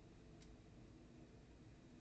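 Near silence: room tone, with one faint short click about half a second in.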